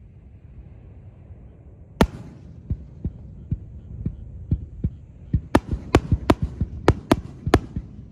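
Aerial fireworks shells bursting over a low rumble: one loud bang about two seconds in, then a quickening run of sharp cracks, several a second, from about halfway through.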